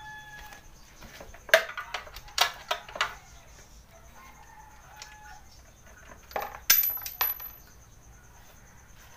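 Sharp metallic clinks and knocks of a wrench working the rear shock's upper mounting bolt loose on a scooter frame. They come in one cluster about a second and a half in and another around seven seconds in.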